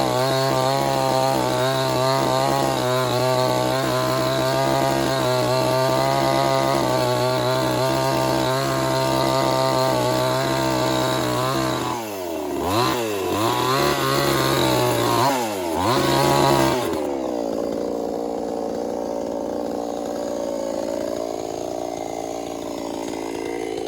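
Chainsaw engine running at a steady high speed, then twice dropping sharply in pitch and climbing back up. It then settles to a lower, quieter, wavering running for the last several seconds.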